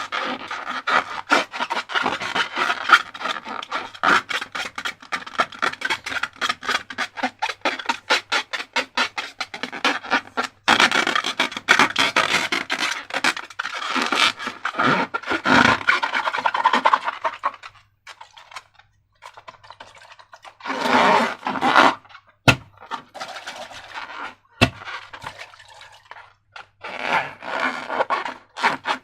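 Slime being mixed and squished by hand, a fast run of small sticky clicks and scrapes. It thins out after about 18 seconds into a few short bursts, with two sharp single clicks in between.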